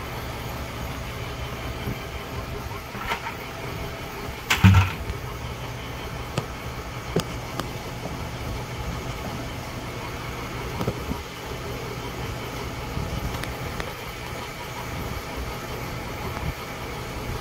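Vertical milling machine running steadily, its boring head cutting out the galled pin bore of a Mopar 440 connecting rod, with a shop fan blowing. A single sharp thump about four and a half seconds in.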